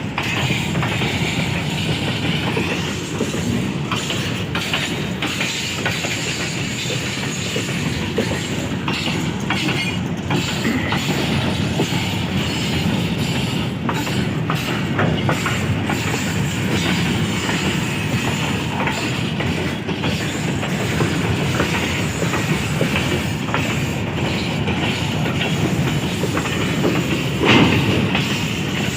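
Goods train rolling past at steady speed, its wagon wheels clicking over the rail joints, with a louder clank near the end.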